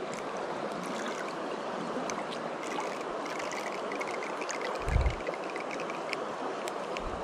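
Shallow creek water running steadily over riffles, with one dull low thump about five seconds in.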